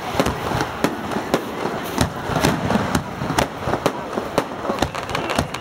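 Fireworks display: a fast, irregular run of sharp bangs and crackling, several reports a second.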